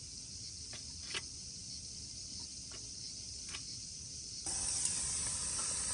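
Tandoori chicken sizzling in a frying pan: a steady hiss that turns louder about four and a half seconds in, with a few light clicks. The chicken is catching on the pan and starting to burn.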